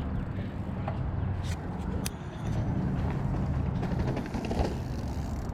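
Mountain bike being ridden, a steady low rumble of rolling and wind on the microphone, with a few sharp clicks and rattles about a second and a half and two seconds in.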